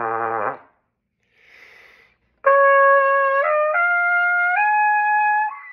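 Trumpet playing: a low note ends about half a second in, a short breath of air follows, and then a series of clear held notes climbs upward in steps.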